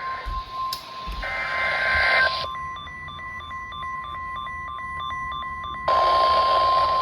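Electronic emergency alert tones: a steady tone near 1 kHz with a rapid, regular beeping of higher tones over it for a few seconds. About six seconds in, a loud hiss cuts in suddenly.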